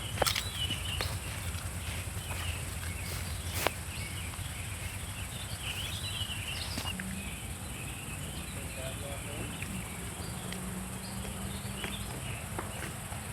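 Insects, crickets among them, droning steadily at a high pitch, with scattered chirps over a low background rumble. Two sharp clicks come in the first four seconds.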